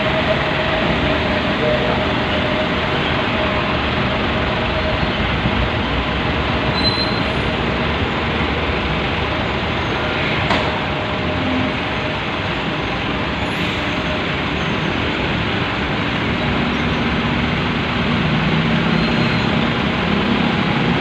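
Heavy diesel machinery running steadily and loudly, with a low engine drone and a held whine, and a brief sharp click about halfway through.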